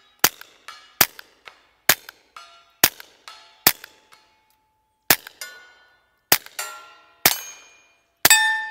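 Suppressed SIG P322 .22 LR pistol firing nine shots of low-velocity CCI Suppressor ammunition, about one a second with a short pause near the middle. Most shots are answered a moment later by the ping of a steel target ringing at 100 yards. The pistol cycles the slow suppressor ammunition reliably.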